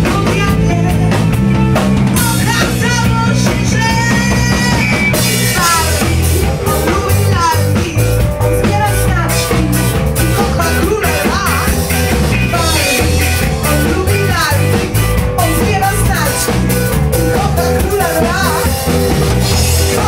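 Rock band playing live: electric guitars and a drum kit, with a woman singing into a microphone over them.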